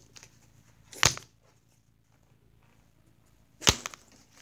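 Two sharp smacks, one about a second in and another near the end, each short and loud against a quiet room.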